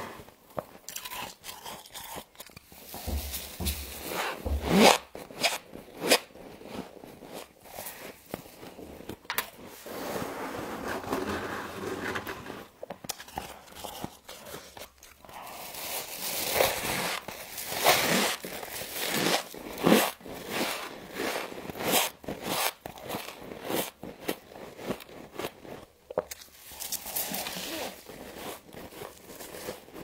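Thick, fluffy freezer frost crunching under bites and scrapes: a long run of irregular sharp crunches with short pauses.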